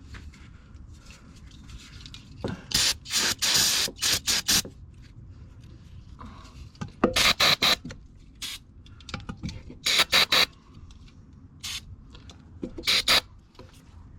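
Aerosol can of brake cleaner sprayed in short hissing bursts, in several clusters: a run of quick bursts about three seconds in, then more around seven, ten and thirteen seconds.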